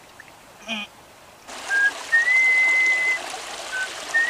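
A man whistling idly, a few short notes and longer held ones, over a shallow stream running steadily, which comes in about a second and a half in.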